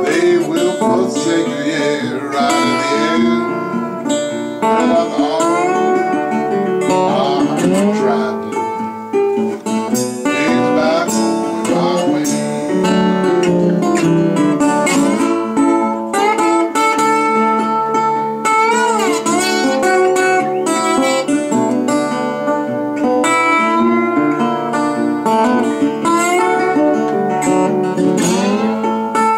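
Blues band playing an instrumental break: a guitar lead whose notes slide up and down in pitch, over plucked and strummed acoustic guitar.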